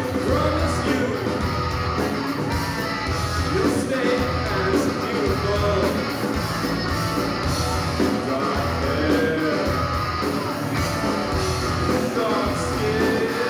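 A rock band playing live, with a singer's voice over the instruments.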